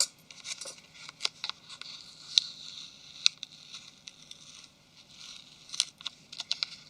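Small sharp clicks and ticks with light scraping as a thin flexible circuit with copper tracks is pried and peeled away from a smartphone's plastic rear cover. The clicks come at irregular intervals, a cluster of them near the end.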